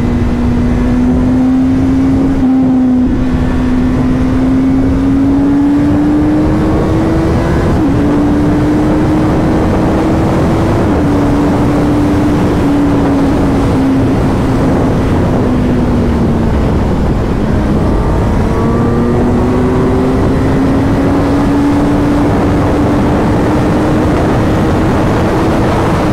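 Kawasaki Z900 inline-four with an Arrow titanium slip-on exhaust pulling hard at high speed. Its note climbs steadily and dips briefly at each of a few upshifts, under heavy wind rush over the microphone.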